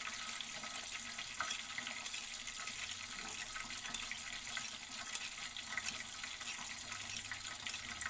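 Tap water running steadily into a stainless steel kitchen sink as a sauce bowl is rinsed out by hand.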